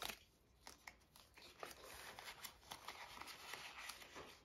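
Faint rustling and light clicks of paper banknotes being handled and slid into a clear plastic binder envelope.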